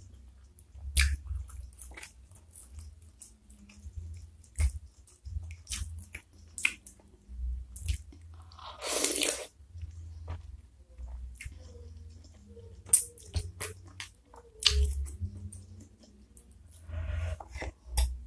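Close-miked eating of flat noodles and beef meatballs in spicy soup: wet chewing with many sharp clicks and taps, including the fork in the bowl. About halfway through, one loud slurp of noodles lasts about a second.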